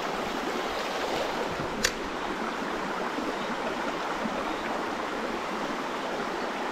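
Small trout stream flowing steadily, an even rush of water, with a single sharp click about two seconds in.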